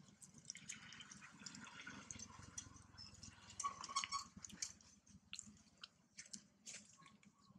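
Faint scattered soft clicks and ticks, with a few short high-pitched chirps; the loudest is a brief chirp about four seconds in.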